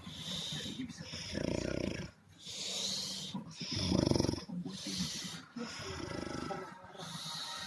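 A person snoring in quick, regular breaths, a low rattling snore alternating with a hissing breath about once a second.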